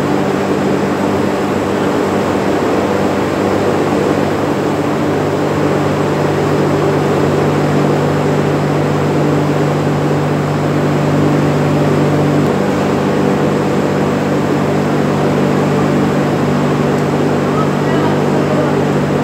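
A pump motor running steadily at constant speed: an unbroken hum.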